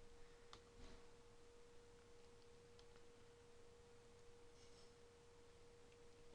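Near silence with a faint steady single-pitched tone, an electrical whine in the recording, and two faint clicks about half a second and a second in.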